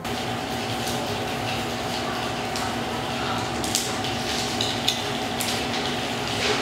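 Toothbrush bristles scrubbing small metal kitchenware, a steady hiss with a few light clicks and clinks from about the middle on. A steady low hum sits underneath.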